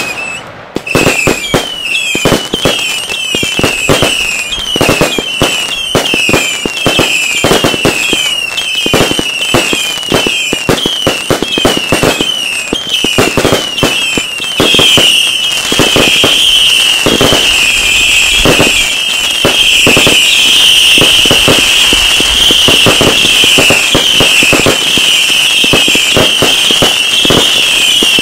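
Consumer fireworks battery firing a rapid run of sharp bangs, several a second, mixed with short falling whistles. About halfway through, the whistles crowd together into a near-continuous whistling.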